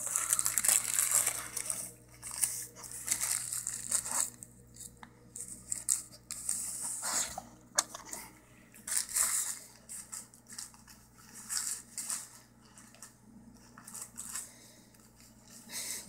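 Pit bull tearing and nosing at a crumpled paper burger wrapper, making bouts of crinkling and ripping paper. The sound is busiest in the first couple of seconds, then comes in short bursts every second or two.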